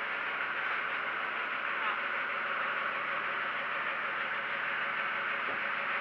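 Steady drone of a fishing boat's engine under a constant rushing hiss of wind and sea.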